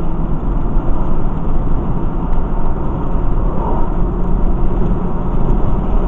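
Steady road noise of a vehicle being driven, heard inside its cabin: a low engine and tyre rumble with no sudden events.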